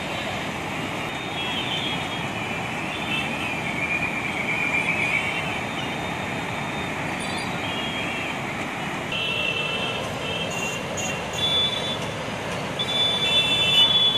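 Steady rushing noise of a river in flood churning past bridge piers, mixed with traffic on the bridge. Thin high tones come in and out during the second half.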